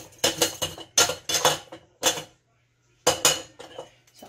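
Four short clattering bursts of a stainless steel canning funnel and lentils against glass pint canning jars as the jars are filled, with gaps of quiet between them.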